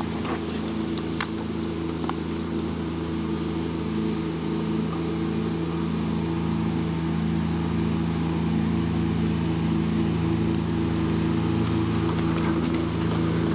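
A motor engine running steadily at one speed, a constant low hum, with a few faint knocks in the first second or so.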